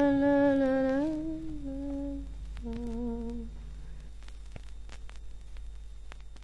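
A voice humming a slow wordless tune of three held notes, the last fading out about three and a half seconds in. Faint clicks and hiss follow.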